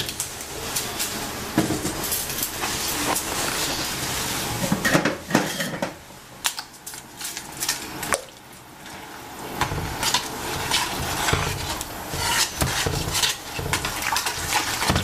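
A spoon stirring a thick tomato-paste sauce in a cooking pot, scraping with many small clinks and knocks against the pot, easing off for a few seconds midway.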